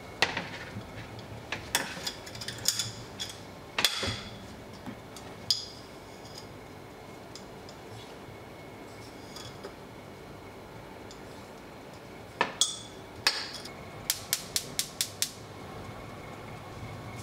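Glass clamp-lid jar and metal tongs clinking and clicking against each other: scattered sharp clinks in the first few seconds, a pause, then a quick run of about six clicks near the end.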